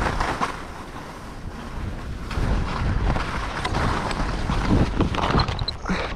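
Wind rushing over the microphone of a skier's camera during a fast downhill run, with the hiss and scrape of skis on packed snow swelling and fading through the turns.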